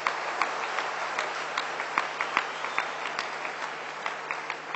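Audience applauding, many separate claps, thinning slightly toward the end, over a steady low electrical hum.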